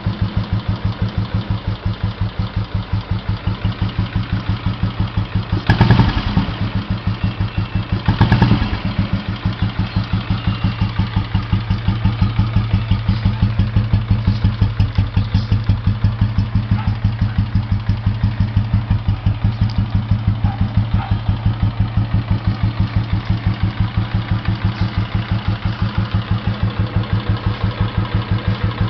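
2006 Royal Enfield Electra 5S's single-cylinder cast-iron engine idling with a steady, even thump through an aftermarket exhaust muffler. It briefly runs louder twice, about six and eight seconds in.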